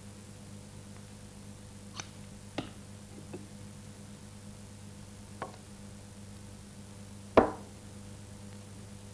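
A few sharp clinks and knocks as small glass bottles and instruments are handled and set down on a bench, five in all. The loudest comes about seven seconds in and rings briefly. Under them runs a steady low hum.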